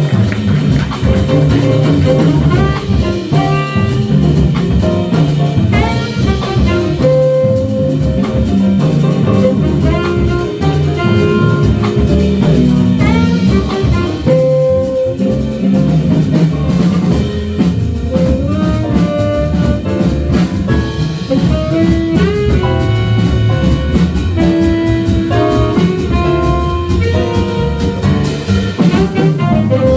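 Jazz band playing live: a saxophone carries a melody with scooped, bending notes over a drum kit.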